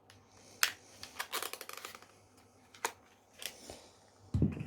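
Sharp plastic clicks from handling a Canon M50 camera's battery and SD-card compartment: a single click, a short run of quick rattling clicks about a second in, then a few more single clicks, and a dull thump near the end.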